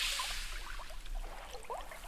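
Sea water washing and gurgling: a wash of water at the start eases into bubbling and trickling, with many small bubble-like blips.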